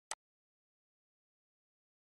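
A single computer mouse click, sharp and brief, about a tenth of a second in, against otherwise near silence.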